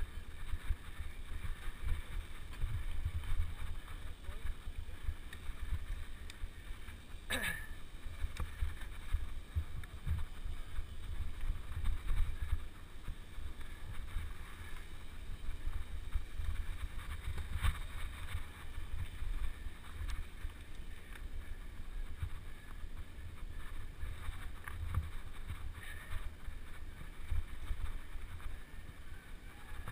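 Mountain bike riding over a dirt forest trail, heard through a bike-mounted camera: a steady low rumble of wind and trail vibration, with three sharp knocks as the bike rattles over bumps.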